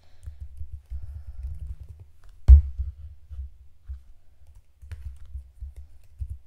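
Typing on a keyboard: a quick, irregular run of dull key thumps, with one sharp, much louder click about two and a half seconds in.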